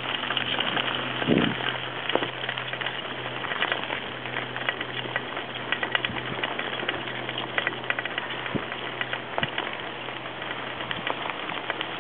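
Bicycle tyres rolling over a sandy dirt trail, a dense steady crackle of grit and small clicks with rattling from the bike, over a steady low hum.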